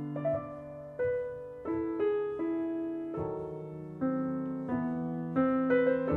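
Slow, gentle piano music as background: single struck notes and chords that each fade away, with a new note about every second.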